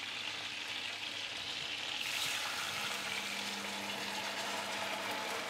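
Hot pan sizzling steadily as broth is poured over a freshly seared rolled lamb shoulder, the hiss swelling a little about two seconds in.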